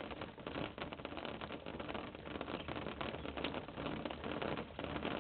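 Dense, steady crackling rustle of Muscovy ducklings moving and pecking in cedar shavings, heard through a security camera's narrow-range microphone.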